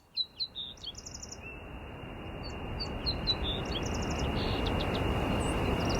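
Small birds chirping in short high notes, with a quick rattling trill twice, over a hiss of outdoor ambience that swells steadily louder, with a faint steady high tone.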